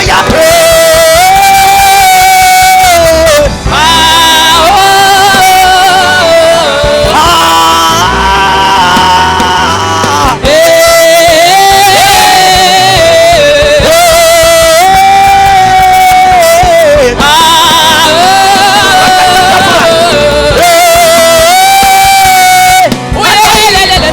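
Gospel worship music: long held sung notes with vibrato in repeated phrases over instrumental backing, without clear words.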